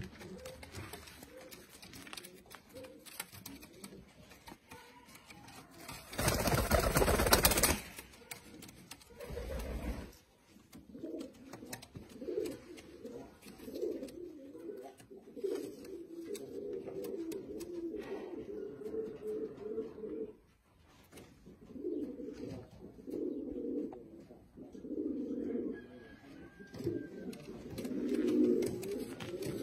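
Domestic pigeons cooing again and again, low bubbling coos in runs of a second or two through the second half. About six seconds in there is a loud rushing noise lasting about a second and a half.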